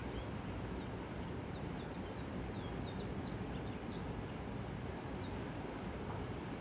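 Small birds chirping in many short, quick high notes over a steady low rushing background of wind or surf; the chirps thin out near the end.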